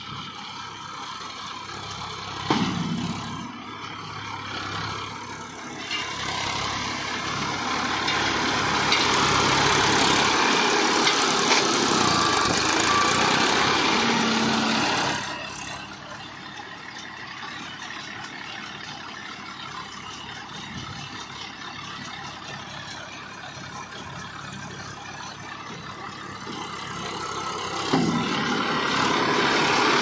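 Massey Ferguson 241 DI tractor's three-cylinder diesel running under load as it tows a small round baler through straw. It grows louder as it draws close, drops off suddenly about halfway, and builds again near the end, with a sharp knock twice.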